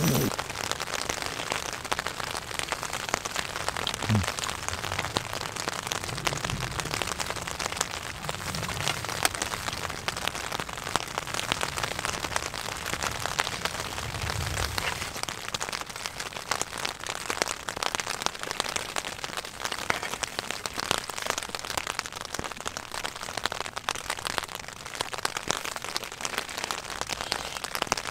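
Steady rain pattering on the fabric of a Tarptent Scarp 1 tent, a dense patter of many small drops. A few soft low bumps come in the first half.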